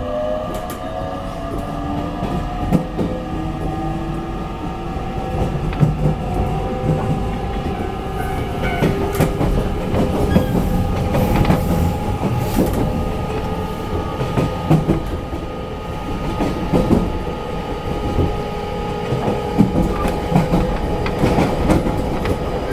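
Inside a JR 813 series electric train's motor car on the move: the traction motors' whine rises in pitch over the first few seconds and then holds steady. Wheel-on-rail rumble runs underneath, with scattered clicks over rail joints.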